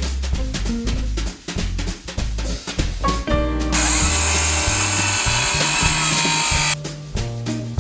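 Ryobi ONE+ brushless cordless circular saw cutting wood for about three seconds in the middle, with a high whine that starts and cuts off abruptly. Background music with drums and a bass line plays throughout.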